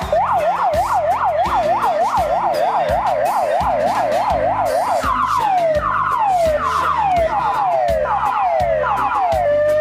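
Police car's electronic siren. It gives a fast yelp of about three quick up-and-down sweeps a second, then switches to a slower run of falling tones, then begins a long rising wail near the end.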